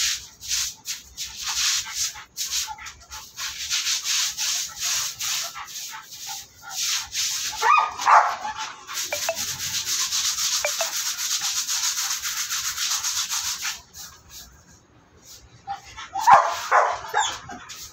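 Stiff brush scrubbing a surface with powder soap, in quick repeated strokes and then steadily for a few seconds. A dog gives a short cry about eight seconds in and again near the end.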